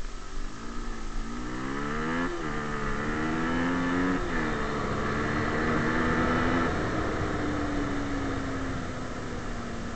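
Rieju Marathon Pro SM 125cc motorcycle engine accelerating hard, its pitch climbing and dropping sharply at two upshifts a couple of seconds apart. It then holds speed briefly before the revs fall away slowly as the throttle is rolled off.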